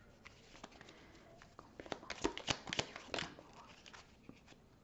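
A deck of oracle cards being shuffled and handled: a run of quick papery clicks and slaps, densest and loudest from about two to three seconds in.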